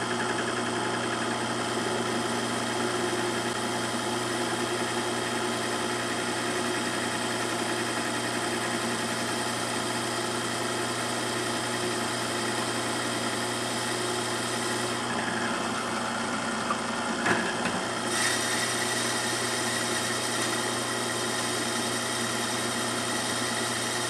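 Bench drill press motor running steadily with an even hum while holes are drilled into a small block of wood. About seventeen seconds in there is a brief knock, after which the sound turns brighter and hissier.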